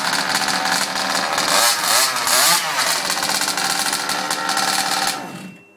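23cc two-stroke petrol engine of a 1/5-scale King Motor Baja 5B buggy running after a cold start, very noisy through its DDM-style expansion pipe. Its pitch swings up and down briefly about two seconds in, and it cuts out shortly before the end.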